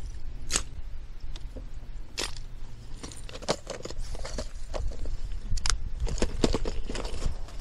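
Irregular clicks and clatter of hard plastic fishing lures being handled and sorted in a clear plastic tackle box, over a low steady rumble.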